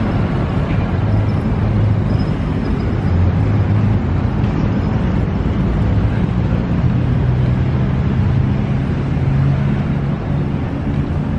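Road traffic noise: a steady low rumble of vehicle engines, with a low engine hum that rises a little in pitch over the second half.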